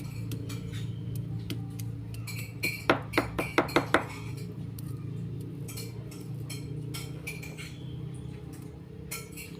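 A utensil clinking and tapping against a dish as roasted garlic is crushed in it, with a quick run of about six sharp taps around three to four seconds in and lighter scattered clinks elsewhere, over a steady low hum.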